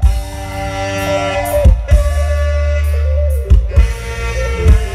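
Isan mor lam band music played loud through a large outdoor PA sound system: held melody notes over heavy bass, with a few drum hits.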